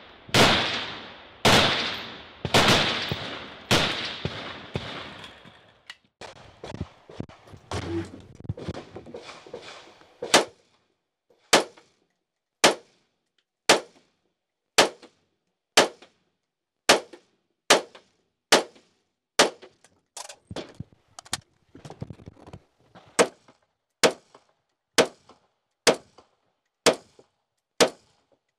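AR-style semi-automatic rifle shots. At first a few loud shots a little over a second apart, each with a long echoing tail; then some fainter scattered pops; then from about ten seconds in, a steady string of sharp single shots about one a second with little echo.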